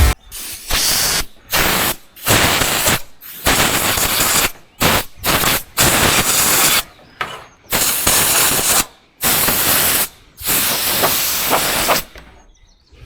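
Compressed air hissing from an air tool in a string of short bursts with brief gaps, stopping about twelve seconds in.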